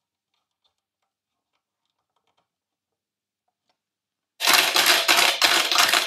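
Near silence with a few faint ticks, then, about four and a half seconds in, a loud, rapid run of key strikes: typing on a TRS-80 Color Computer 2 keyboard.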